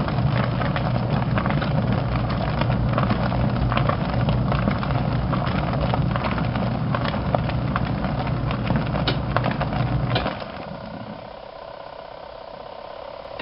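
Small twin-tub washing machine running: a steady motor hum under the splashing and churning of water in the tub. The motor stops about ten seconds in and only quieter water movement is left, the on-off pause of the wash cycle.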